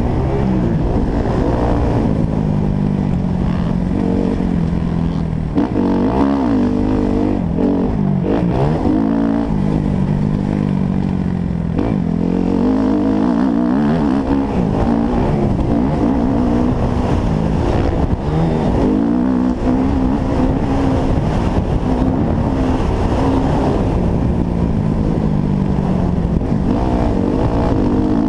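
Motocross bike engine at full ride, revving hard and shifting through the gears, its pitch climbing and dropping again and again as the throttle opens and closes.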